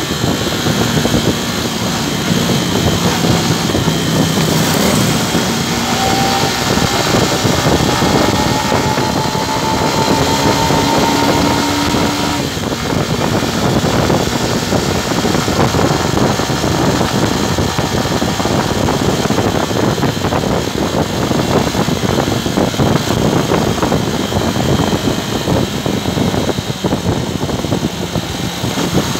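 Wind rushing over the microphone of a moving motorcycle, with the engine running underneath and traffic around. A faint engine tone rises slowly for several seconds near the middle as the bike speeds up.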